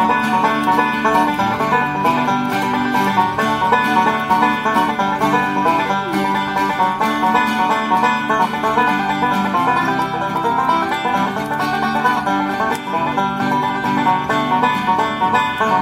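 Banjo picking a fast bluegrass instrumental in a steady, continuous run of plucked notes.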